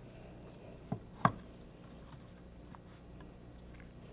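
Two sharp taps a third of a second apart about a second in, then a few faint ticks, from a spice shaker being handled while seasoning meat on a tray. A low steady hum runs underneath.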